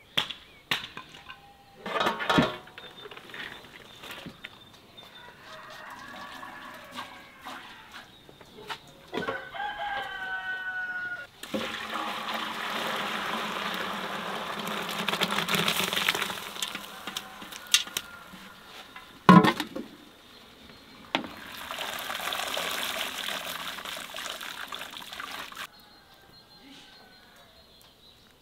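A rooster crows once, about nine seconds in. Then hot water is poured off a large pot of boiled rice in two long pours, with a few sharp knocks in between.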